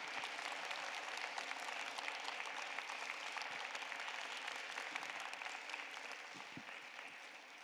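Audience applauding, many hands clapping together, dying down toward the end.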